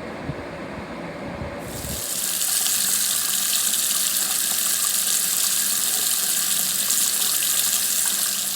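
Water running hard from a tap as a loud, steady hiss, turned on about two seconds in and shut off at the very end. Before it comes on there is a low rumble.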